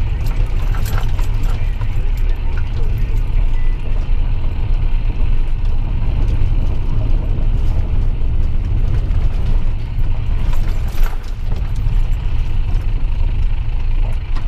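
Steady low rumble of a car's engine and tyres heard inside the cabin while driving on a rough gravel track, with scattered clicks and knocks from the car over the rough surface and a sharper knock about eleven seconds in.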